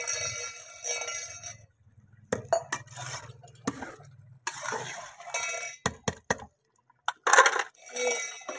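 Two ringing clinks about a second apart at the start, then a metal ladle knocking and scraping against a large aluminium cooking pot as rice is stirred. The loudest clatter comes near the end.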